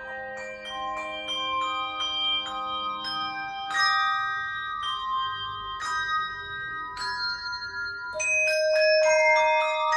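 Handbells and tone chimes playing a melody: struck notes that ring on and overlap, with a new note or chord about every half second.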